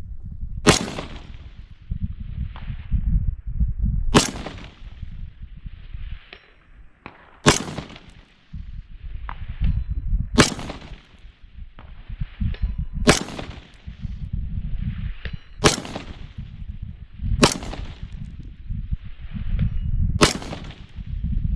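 AR-15 rifle in 5.56 fired in single, deliberate shots: eight sharp cracks with a short echo after each, spaced about three seconds apart. A low rumble runs between the shots.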